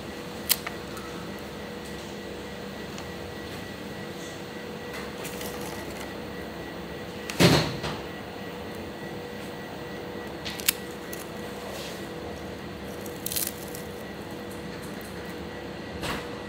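Steady machine hum with a few short sharp clicks and knocks scattered through it, the loudest about seven and a half seconds in.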